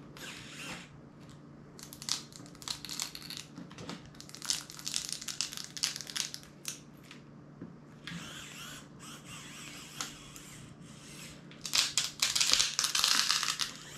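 Metal pry tool scraping and levering inside a Xiaomi POCO smartphone's chassis to force out its stuck, glued-in 6000 mAh battery, in irregular bursts that are loudest near the end.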